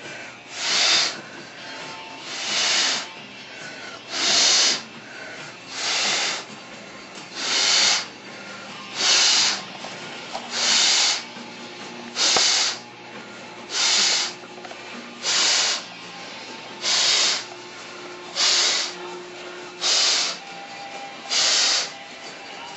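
Hard, rhythmic breaths out into a rubber glove pulled over the head, inflating it: a hissing rush of air about every second and a half, each lasting about half a second, with no pop yet.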